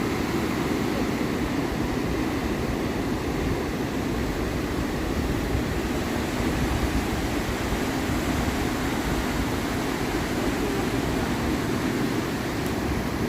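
Steady rushing of ocean surf, an even roar at a constant level with no single wave standing out.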